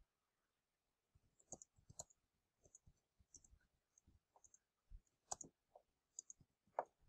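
Computer keyboard being typed on: faint, irregular key clicks, a few a second, starting about a second in.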